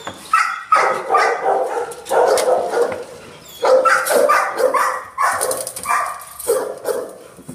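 Dogs in shelter kennels barking in quick runs of barks, with a brief lull about three seconds in.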